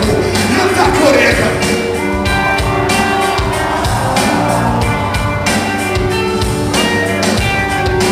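Live rap-rock band playing loudly through a PA: guitar, bass and drums, with a rapper's voice over the microphone in the first couple of seconds.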